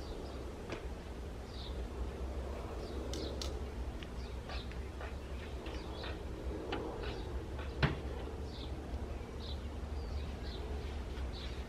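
Birds chirping in short scattered calls over a low steady hum, with a single knock about eight seconds in.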